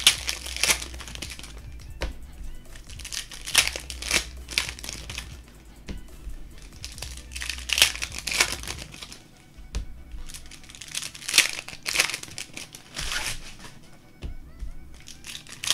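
Foil wrappers of Optic basketball card packs crinkling and tearing as pack after pack is opened by hand, in quick irregular rustles, with music playing faintly behind.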